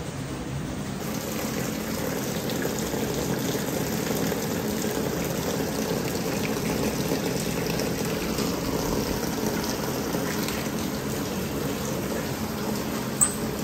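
Steady rush of running water, like a waterfall, growing louder about a second in and holding steady; a brief click sounds near the end.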